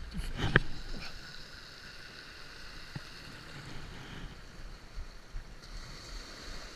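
Small waves washing and fizzing on a sandy shoreline, with one sharp knock about half a second in.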